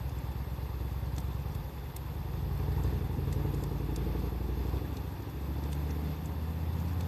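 A low, steady engine-like rumble dominates, shifting in pitch about five seconds in. Over it, a wood fire gives sparse, faint crackles and pops.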